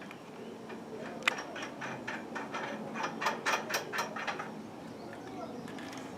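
A run of quick, sharp clicks, about five a second, from the tools being used to fit a new wooden stay to the second church bell. The clicks begin a little over a second in with one loud knock, are loudest near the middle, and die away after about four and a half seconds.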